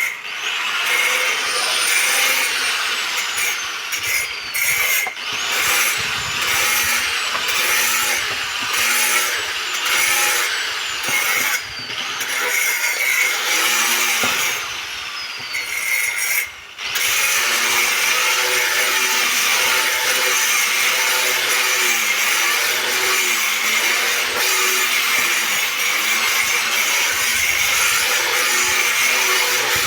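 Handheld power tool grinding stone, a continuous abrasive rasp with a steady high whine, easing off briefly a few times, most clearly about 12 and 17 seconds in.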